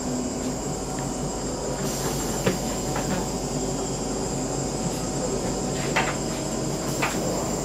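Interior of a CityElefant 471 double-decker electric multiple unit: a steady low hum and a steady high whine, broken by a few sharp clicks, the loudest about six seconds in.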